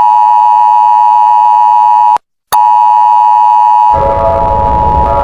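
Loud, steady electronic alert tone of an Emergency Alert System–style alarm, pitched near 1 kHz, breaking off for a moment about two seconds in and then resuming. Near the end it gives way to a harsher alarm sound with a low rumble and shifting tones.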